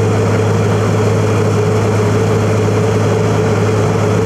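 Wirtgen W2000 cold milling machine at work: a loud, steady drone of its diesel engine and cutting drum as it breaks up the old asphalt surface for cold recycling. The noise cuts off suddenly at the very end.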